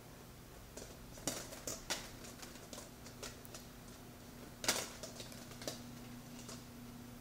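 Two cats play-wrestling on carpet: irregular soft taps and scuffs of paws and bodies, the loudest about four and a half seconds in.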